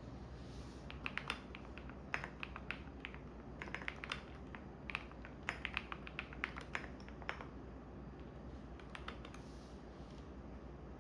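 Computer keyboard typing in uneven bursts of keystrokes that pause about two-thirds of the way through, then a few more keys. Underneath is the steady low hum of a washing machine running.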